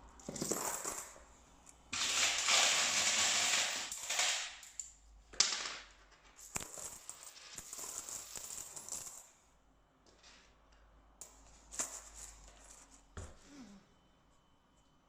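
Lens packaging being handled: a few seconds of rustling, then scattered small clicks and taps of hard parts being set down and fitted.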